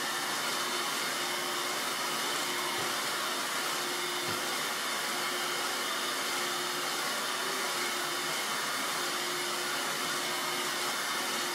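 Dirt Devil vacuum cleaner running steadily, a constant motor whine over the rush of air.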